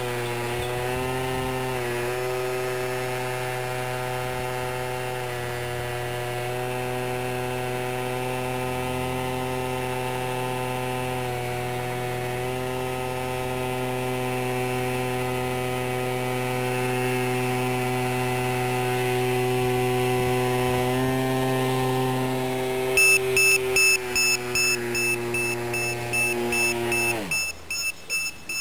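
Electric motor and propeller of a foam RC VTOL plane hovering nose-up in a prop hang: a steady whine with small dips in pitch as the throttle is worked. The owner says the motor is failing, its clip come off and the motor hot, which shakes the airframe. About 23 seconds in, a battery alarm starts beeping rapidly, and soon after the motor winds down and stops.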